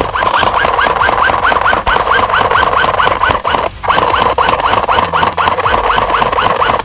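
Airsoft electric rifle firing long full-auto bursts: the gearbox motor whines steadily while the mechanism cycles with a rhythmic chirp about four to five times a second, with one brief break just under four seconds in.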